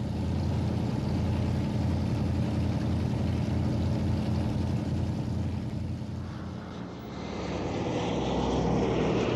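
Propeller airliner's piston engines running, a steady pulsing drone with propeller beat. It dips about seven seconds in, then swells back up.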